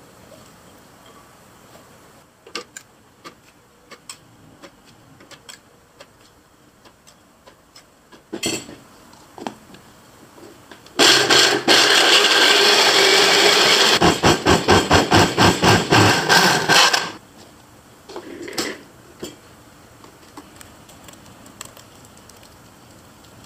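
Small countertop blender grinding fresh sweet corn kernels: it runs steadily for about three seconds, then is pulsed on and off about four times a second for three seconds before stopping. Light clicks and taps of kernels and the blender jar being handled come before and after.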